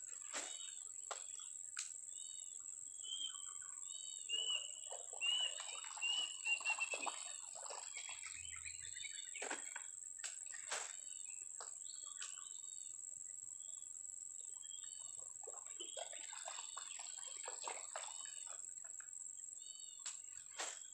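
Swamp ambience: a steady high-pitched insect drone with birds calling over it in short repeated chirps, busier bird chatter a few seconds in and again later on. A few sharp clicks stand out.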